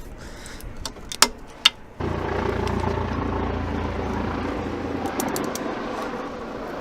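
Citroen Relay's 2.2 diesel engine running steadily with its newly replaced timing chain; the running comes in suddenly about two seconds in. Before it, two sharp metallic clicks.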